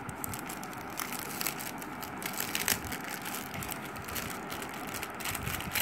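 Clear plastic packaging bag crinkling and crackling as hands handle and turn over the phone case sealed inside it, with a few sharper crackles among the steady rustle.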